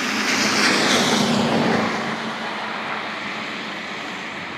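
A vehicle passing on a wet road: tyre hiss that swells about a second in and then fades away.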